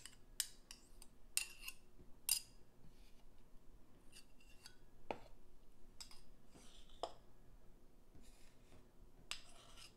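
Metal measuring spoon and utensil clinking and scraping as a measure of peanut butter is levelled off and scraped into a plastic food processor bowl: a scattering of light clicks and short scrapes.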